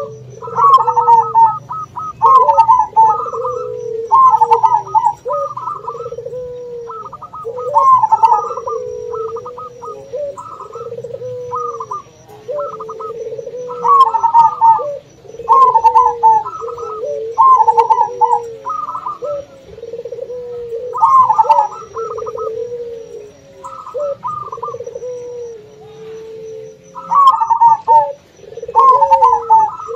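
Zebra dove calling: short, quick trilling coo phrases repeated every second or two. Under them runs the lower, almost unbroken cooing of a second kind of dove.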